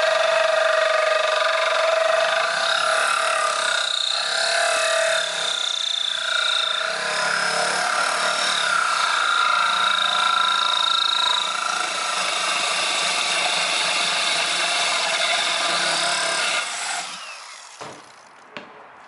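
Corded electric drill boring a hole through aquarium glass with a hole saw, the cut kept wet with poured water. The motor whine and grinding run steadily, then wind down and stop about seventeen seconds in, followed by a few light knocks.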